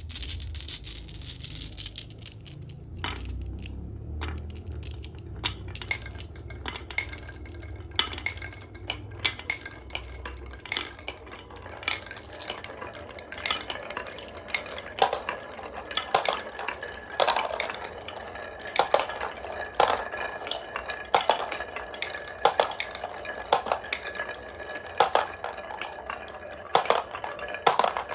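Marbles rolling down a HABA wooden marble run, clacking against the track pieces. A low rolling rumble fills the first ten seconds, then the clacks come faster and louder, with a thin steady ringing tone through the second half.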